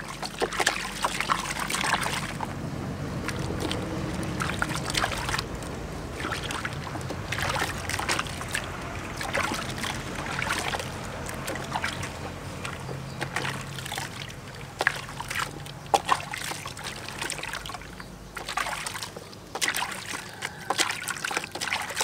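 Soapy water sloshing and splashing in a plastic basin, in uneven bursts, as hands scrub and rinse a baby monkey.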